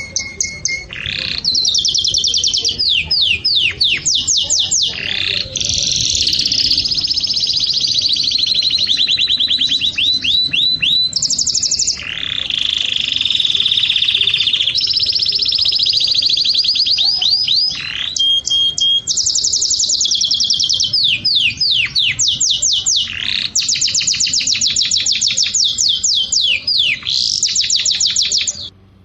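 A songbird singing a long, loud, high-pitched song of rapid trills, runs of repeated sweeping notes and held whistles, barely pausing, until it cuts off suddenly near the end.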